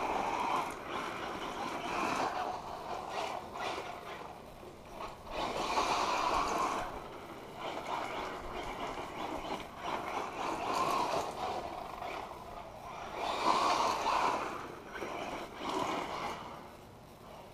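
1/8-scale electric RC car with a Castle Sidewinder brushless 2200 kV motor combo driving back and forth on gravel: repeated swells of motor and tyre noise on the gravel as it passes, about every two to four seconds.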